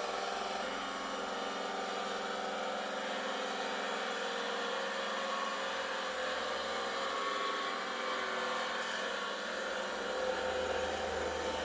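Diesel engine of roadworks machinery running steadily: a small twin-drum road roller and tipper lorries on an asphalt patch. It sounds thin, with little bass.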